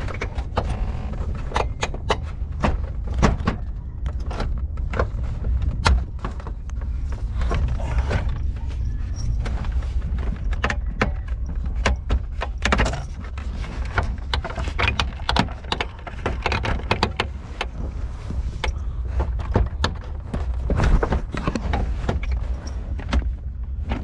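Plastic lower dash and steering-column trim panels of a 2001 Chevy S10 being handled and pressed into place: a long run of irregular clicks and knocks over a steady low rumble.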